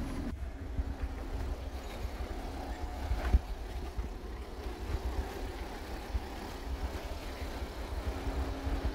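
An uneven low rumble of wind buffeting a phone microphone outdoors, with no distinct mechanical rhythm.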